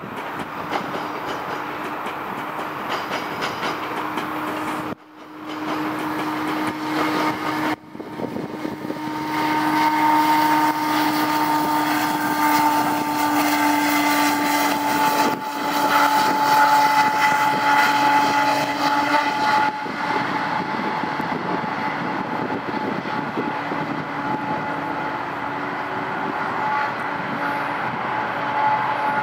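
GO Transit passenger train passing: bilevel coaches rolling by, then the MP40PH-3C diesel locomotive going past with a steady engine drone, loudest around the middle, its pitch sinking slightly as it moves away. The sound drops out briefly twice in the first eight seconds, and the train noise eases after about twenty seconds.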